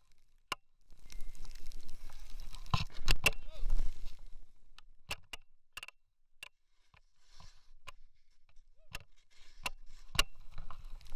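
Snowboard sliding through powder snow: a soft hiss of snow with scattered sharp ticks and knocks, quieter for a couple of seconds past the middle.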